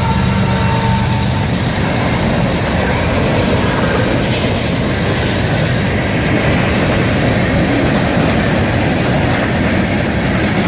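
Freight train rolling past close by: a steady, loud rumble and clatter of wheels on rail. The last of the locomotive's horn fades out about a second in.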